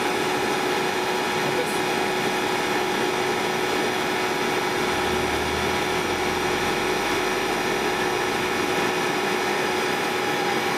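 Electric motor-generator set running steadily: a constant hum with a steady tone over an even whirring noise.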